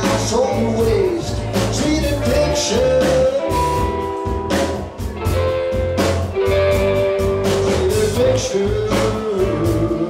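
Live band playing: a man sings lead over electric bass, guitar and drums with a steady beat.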